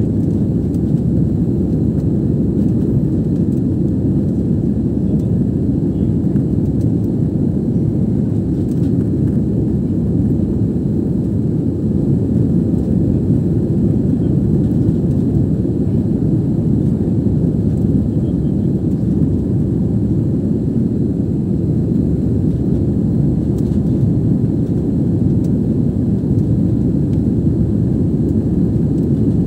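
Jet airliner in flight heard from inside the cabin: a steady, deep rumble of engines and airflow that does not change.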